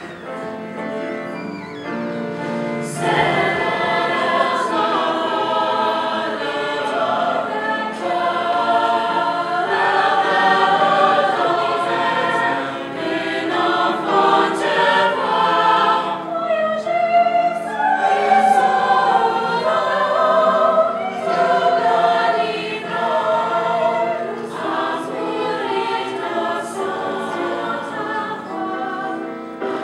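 A mixed-voice high school choir singing in several parts, softly at first and swelling into fuller singing about three seconds in.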